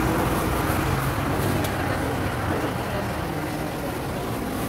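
Steady din of a busy public market: indistinct background chatter under a constant low rumble of passing vehicles.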